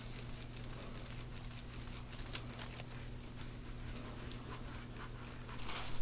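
Faint scraping and scratching of a handheld soft-tissue scraping tool drawn over oiled skin on a back, in short, irregular strokes, with a louder stroke about two seconds in and a louder rasp just before the end. A steady low hum runs underneath.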